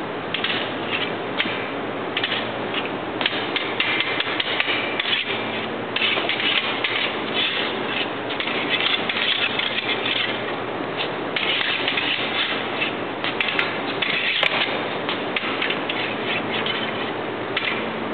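Fencing foil blade tapping and scraping against the spring-mounted metal arm and bell guard of a wall target, a dense run of clicks and scrapes.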